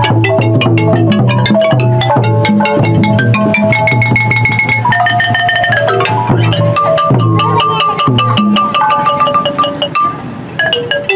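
Music led by quick runs of struck mallet-percussion notes, xylophone-like, over a steady low bass; it thins out briefly near the end.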